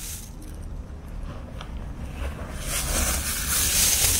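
Thin plastic bags rustling and crinkling as they are handled, louder from about two-thirds of the way in, over a low steady background rumble.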